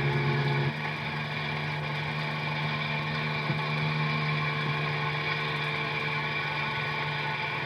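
A motor running steadily with a low, even hum; a louder layer of tones drops away under a second in.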